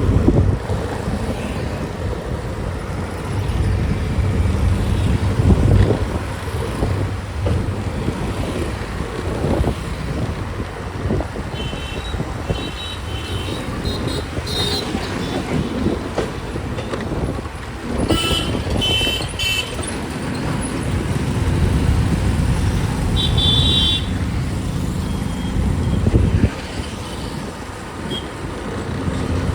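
Heavy diesel machinery engine running and working, its low rumble rising and falling with load. Several short, high-pitched horn toots come in clusters around the middle.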